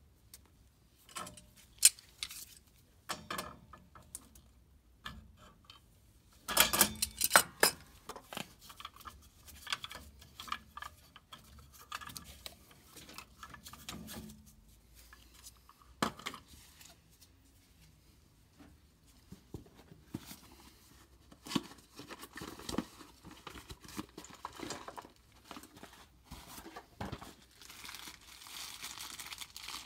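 Scattered metal clicks, taps and rustling as a gas valve is worked loose from the furnace piping with a wrench and lifted out by gloved hands. A quick run of sharp clicks between six and eight seconds in is the loudest part, and softer rustling follows near the end.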